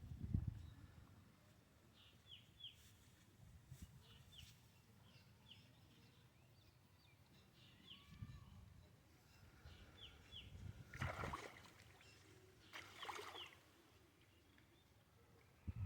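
Faint bird calls: short downward chirps, often in pairs, repeating every second or so over a quiet outdoor background. Two brief louder swishing noises come late on.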